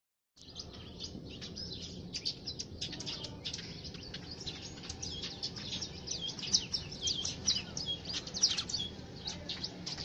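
A flock of small weaver birds chattering, with many quick, overlapping high chirps that cut in suddenly just after the start.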